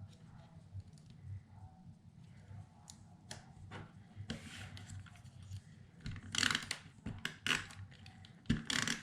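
Die-cut paper pieces being handled on a tabletop: scattered light taps and clicks, with short bursts of paper rustling in the second half.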